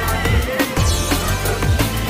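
Background music with a heavy bass line and a steady thumping beat.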